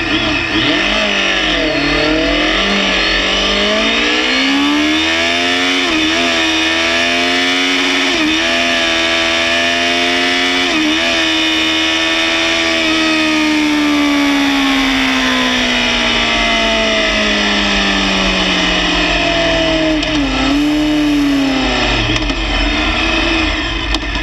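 Motorcycle engine on a drag strip run: it launches from the line and the revs climb through a string of quick upshifts over the first eleven seconds, then fall steadily as the bike rolls off and slows, with a brief blip near the end. Wind rushes over the microphone.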